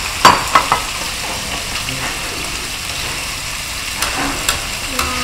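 Shrimp and squid sizzling in hot oil in a metal wok as they are stir-fried. Utensils knock against the wok with a few sharp clicks just after the start and again about four seconds in.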